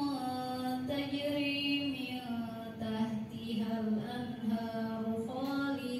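A woman's voice reciting the Quran in Arabic in the melodic tilawah style, through a microphone, with long held notes that slide slowly between pitches.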